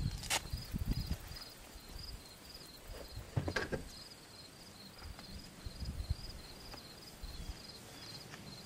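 Insects chirping in an even rhythm, about two high chirps a second. Two sharp clicks come through, one just after the start and a louder one about three and a half seconds in, with scattered low handling thuds or footsteps.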